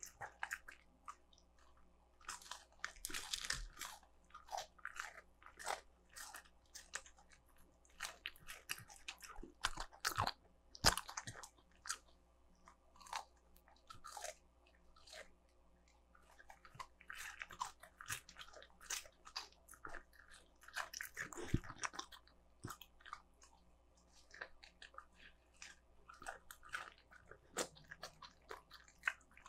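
A Shiba Inu biting and chewing crunchy breaded fried chicken: irregular crunches and mouth clicks, coming in clusters with short pauses between.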